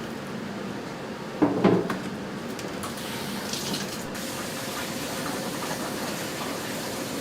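Water running steadily in a commercial kitchen, with a brief clatter about one and a half seconds in.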